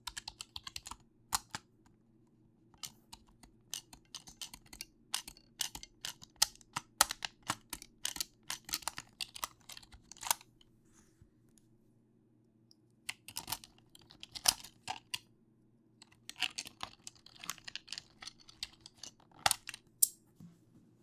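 Keys of a computer keyboard being typed on, in quick runs of clicks broken by a pause of about two seconds partway through.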